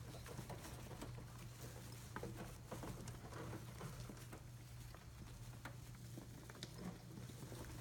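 Young female pet rats moving about in their enclosure: faint, scattered little taps and scratches, over a steady low hum.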